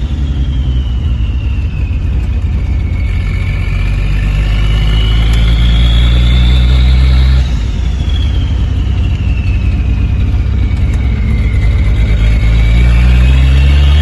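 Turbocharged Chevrolet Opala 4.1 straight-six engine running hard under load, with a high turbo whine gliding down and then rising. The sound breaks off briefly about halfway through, then the engine pulls again as the whine falls and climbs once more.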